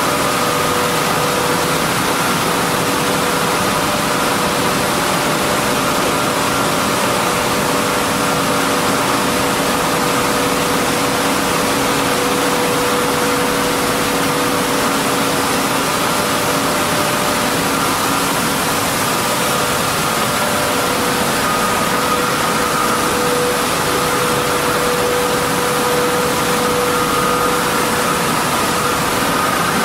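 Millet milling plant machinery running: a steady, loud wash of machine noise with several hums held over it.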